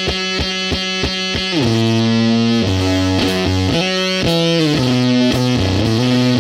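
Rock music led by distorted electric guitar with bass. It opens on a quick repeated chugging figure, and about a second and a half in it changes to held chords that slide from note to note.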